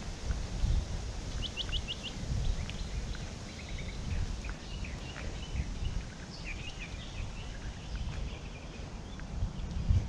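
Small birds chirping and twittering in short high calls, with a quick run of five notes about a second and a half in, over a low irregular rumble.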